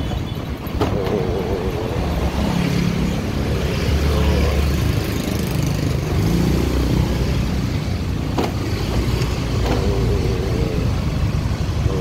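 Motorbike engine running at low speed with steady road noise, while other motor scooters pass close by in the opposite direction.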